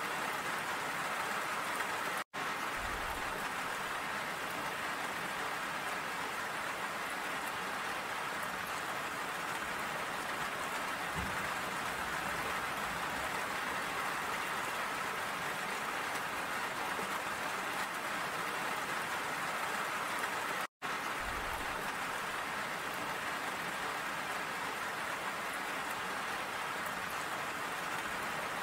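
Steady rain falling, an even hiss of drops. The sound cuts out for an instant twice, about two seconds in and again near the end.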